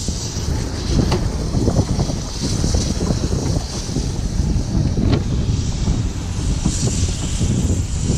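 Narrow-gauge passenger carriages rolling slowly past: a steady low rumble with irregular clicks and knocks from the wheels on the track, and wind buffeting the microphone.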